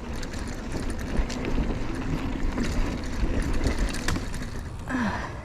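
Mountain bike rolling along a dirt trail with wind on the microphone. The tyres rumble over roots and dirt, and the bike rattles with scattered sharp clicks.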